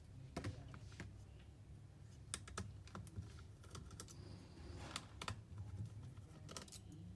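Irregular light clicks and taps of small plastic and metal laptop parts being handled on an HP EliteBook 840 G3's palmrest, about a dozen in all, over a faint steady low hum.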